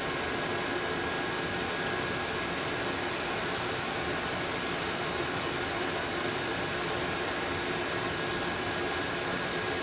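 Pancake batter sizzling on a hot buttered griddle as it is squeezed out in small rounds, the hiss growing fuller about two seconds in, over a steady hum with a faint high whine.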